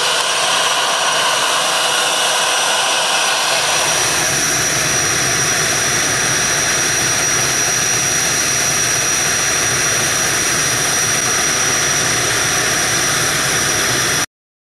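Engines of an ATR-type twin-turboprop airliner running steadily at close range, a rushing noise with a steady high whine. About three and a half seconds in it turns fuller and deeper, and near the end it cuts off suddenly.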